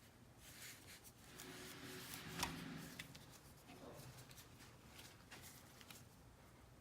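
Faint handling noise of hands working at a delicate cable connector inside a car navigation unit: light scraping and small plastic clicks, with one sharper click about two and a half seconds in.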